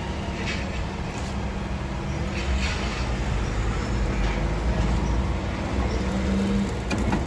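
Street traffic: a steady low rumble of vehicle engines, with a few faint light clicks.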